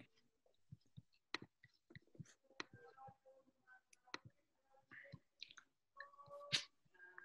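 Near silence on a video-call line, broken by scattered faint clicks.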